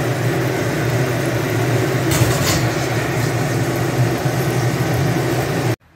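An egg frying in a wok on a gas stove: a steady sizzle over a low hum, with a few light clicks about two seconds in. It cuts off suddenly near the end.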